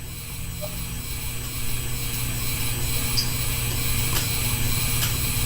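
Electric fan running: a steady hum with airflow rumble that slowly grows louder, with a few faint clicks.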